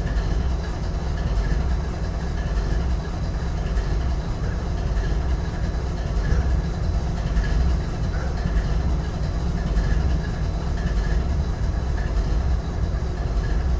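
GE ES40DC diesel-electric locomotive's GEVO-12 V12 diesel idling, a steady deep rumble that holds even throughout.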